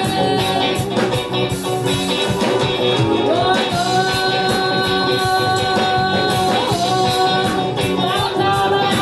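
Live reggae band playing: a woman sings into a microphone over drums and electric guitar, holding one long note through the middle.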